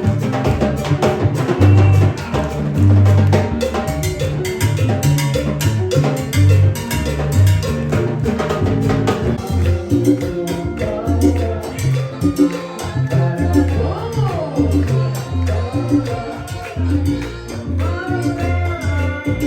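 Salsa-style Latin music with a rhythmic bass line, percussion and a melody line.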